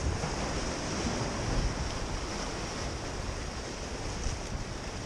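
Ocean surf washing and breaking against the boulders of a rock jetty, a steady rush of water, with wind rumbling on the microphone.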